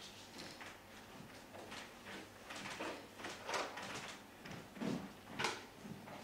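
A series of knocks, taps and scrapes from props being handled and set down on a stage, with the loudest knocks near the end as a cardboard box is put down.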